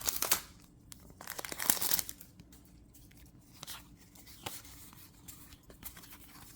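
Foil Pokémon booster pack wrapper being torn open and crinkled, in rustling bursts over the first two seconds, then a few faint ticks of handling.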